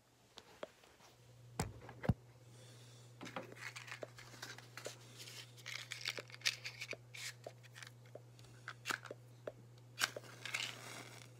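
Paper matchbook handled close up: crinkling and small tearing sounds with scattered clicks and taps, over a steady low hum. Two knocks near the start are the loudest sounds.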